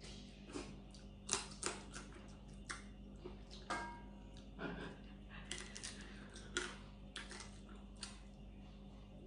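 Close-up eating sounds: irregular crisp clicks and crunches of chewing and of picking meat from cooked blue crab shell with the fingers.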